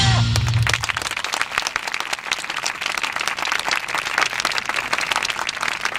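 Dance music ends within the first second, then an audience applauds with a dense patter of many hands clapping.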